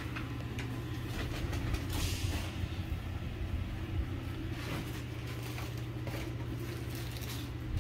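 Steady low hum of an electric air blower running continuously to keep an inflatable water slide inflated, with brief rushes of noise about two and five seconds in.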